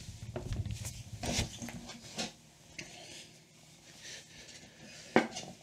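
A person moving and sitting down at a desk: rustling and low shuffling, a few light clicks, then one sharp knock near the end.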